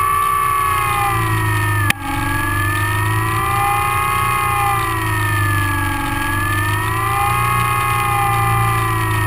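Electric motor and propeller of a GWS SlowStick RC plane whining steadily in flight, the pitch slowly rising and falling, over a steady low hum. A sharp click and brief dropout about two seconds in.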